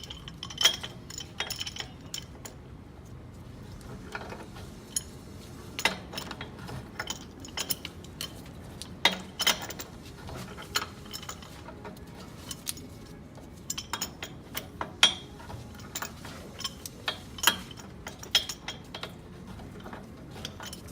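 Irregular metallic clinks and clicks of wrenches working threaded steel gas pipe fittings as a stiff, long-joined 90-degree elbow is backed off and unscrewed, with a few louder knocks along the way.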